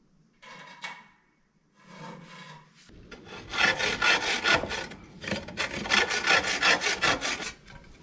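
Hand saw cutting through a white building block, rapid back-and-forth rasping strokes about three a second. The sawing starts about three seconds in and stops just before the end.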